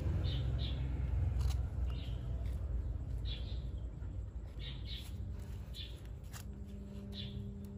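A small bird chirping repeatedly in short paired notes, over a low rumble that is strongest in the first couple of seconds, with a few light clicks. A faint steady hum joins about five seconds in.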